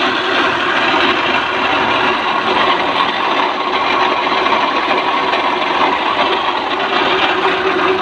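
Maruti 800's three-cylinder petrol engine running steadily with a bearing hum and grinding from the front of the engine. The mechanic takes it for a failing bearing that could be the water pump, the alternator bearing or the timing belt tensioner bearing.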